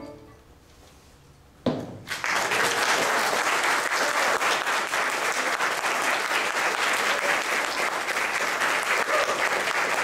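Audience applause. After a short hush, clapping breaks out suddenly about two seconds in and keeps going at a steady level.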